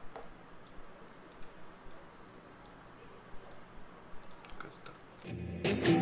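Scattered faint clicks from a computer keyboard and mouse. Music comes in loudly near the end.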